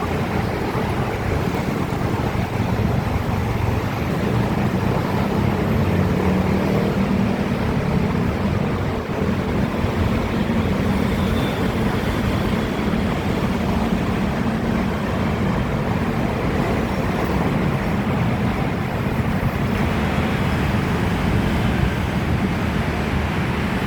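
Electric train running at a steady speed: a continuous low rumble with a hiss of air and track noise over it.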